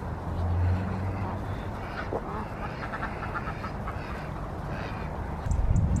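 Ducks quacking in a quick run of short calls in the middle of the clip. Two louder low rumbles come near the start and near the end.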